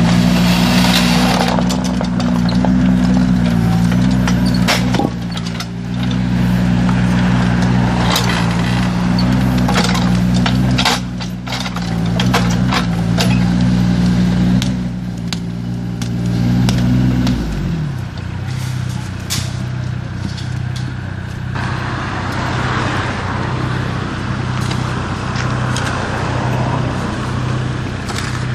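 IHI mini excavator's diesel engine running at working revs with the hydraulics, then dropping to a lower, steadier idle about two-thirds of the way through. Occasional sharp knocks come on top of the engine.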